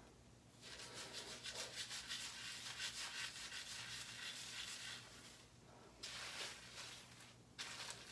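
Fingers scrubbing shampoo into wet hair and scalp: a rapid rustling rub that comes in a few stretches with brief pauses between.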